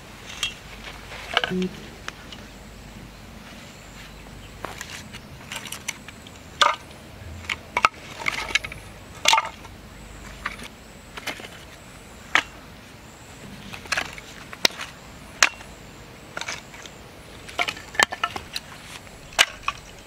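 Split firewood pieces set one by one into a burlap log carrier, knocking against each other in a string of sharp wooden clacks, roughly one every half second to two seconds.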